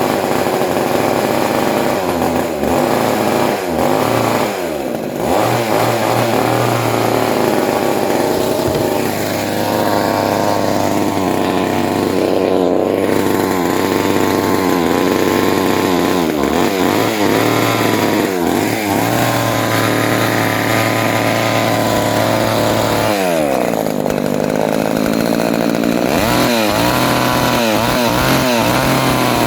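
1976 Remington Sportsman 2.1 chainsaw's 34.4cc two-stroke engine running, its pitch rising and falling repeatedly as the throttle is worked. It is held at high revs for stretches of a few seconds and blipped up and down in quick succession near the end.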